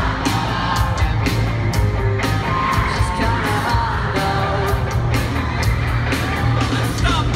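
Live rock band playing in an arena, with a singer, electric guitars and a steady drum beat. It is heard from within the crowd through a phone's microphone.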